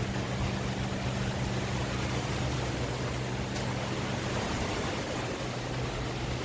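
Steady rain falling on the roof sheeting overhead, an even hiss. A low steady hum runs underneath and drops out for about a second some four seconds in.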